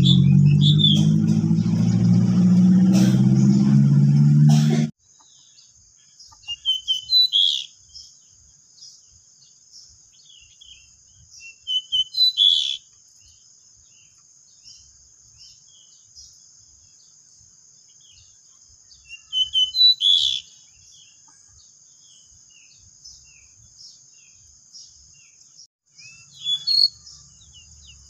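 Pied bushchats singing in short bursts of quick chirping phrases, loudest about seven, twelve, twenty and twenty-seven seconds in, over a steady high-pitched buzz. A loud low hum plays under the first five seconds and cuts off suddenly.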